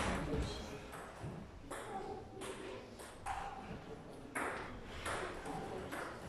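Celluloid-type plastic table tennis balls striking paddles and table tops in sharp, irregular pocks, about one every half second to a second, some with a short hollow ping.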